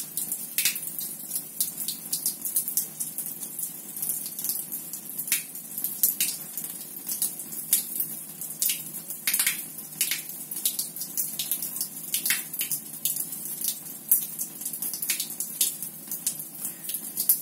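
Rinse water pushed by CO2 pressure out through a Cornelius keg's stainless tap fitting, splashing in a thin stream onto a tiled floor, with frequent irregular spits and crackles. This is the pre-rinse flushing the keg's dip tube and line.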